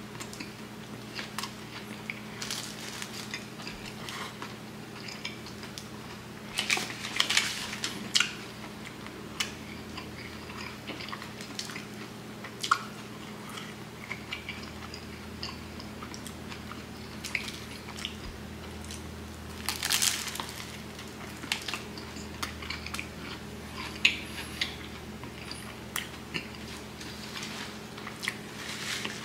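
Close-up biting and chewing of a Subway Philly cheesesteak sub, with the crusty bread crunching in irregular bites and chews. The louder crunchy bites come about seven seconds in and again about twenty seconds in, over a steady low hum.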